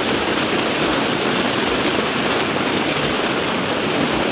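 Water gushing from a well's blow-off pipe and splashing into a concrete channel, a loud steady rush: the well pumping to waste at startup to flush out fine material before the water goes into the distribution system.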